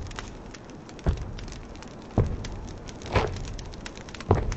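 Slow footsteps of boots on a straw-strewn stone floor: four evenly spaced steps about a second apart.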